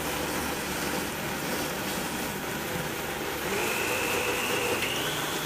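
High-speed countertop blender running, blending a thick cashew mayo. About three and a half seconds in, a whine rises in pitch as the motor speeds up.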